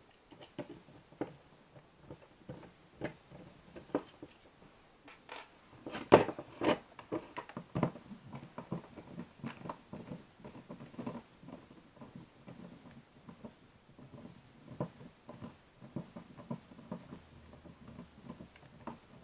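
Plastic and metal parts of a tape measure being handled and taken apart on a desk: scattered small clicks and knocks, the loudest knock about six seconds in.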